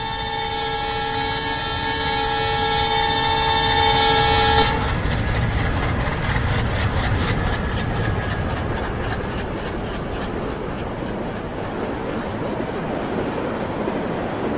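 Train horn sounding a steady multi-tone chord that cuts off suddenly about five seconds in. It is followed by the rhythmic clickety-clack of train wheels passing over rail joints, fading into a steady rumble.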